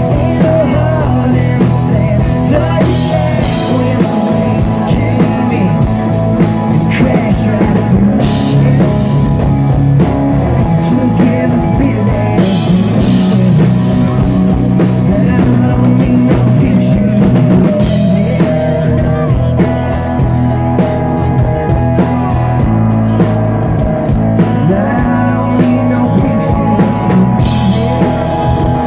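Live country-rock band playing loud: a male singer with acoustic guitar, backed by a drum kit keeping a steady beat.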